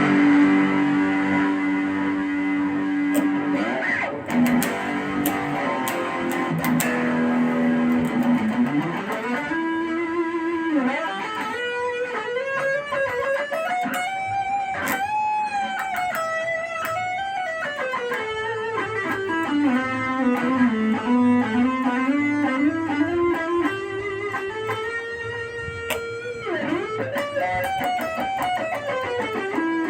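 Ibanez Gio electric guitar playing a lead line: held notes at the start, then long sustained notes that slide and bend smoothly up and down in pitch.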